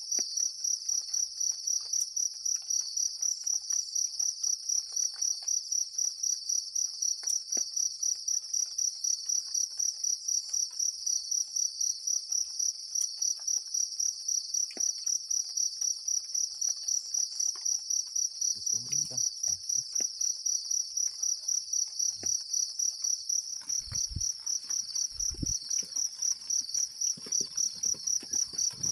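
Insects, crickets, chirping in a steady, even pulse of about three chirps a second, high-pitched and the loudest thing throughout. A few dull low thumps come in the second half.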